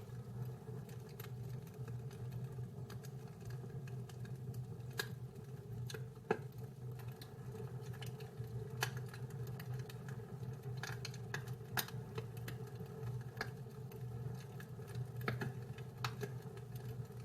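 Wood fire crackling in a fireplace: irregular sharp pops and ticks every second or few, over a steady low rumble.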